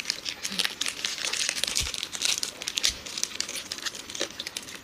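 Plastic chocolate-bar wrapper crinkling as it is handled and pulled at, a dense crackle that thins out near the end.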